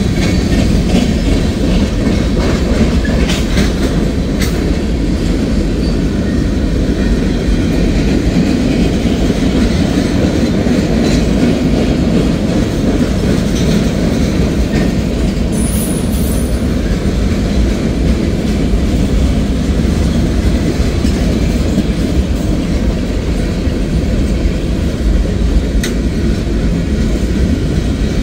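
A Norfolk Southern mixed manifest freight train's cars rolling steadily past: a continuous low noise of steel wheels running on the rails as tank cars, flatcars and boxcars go by.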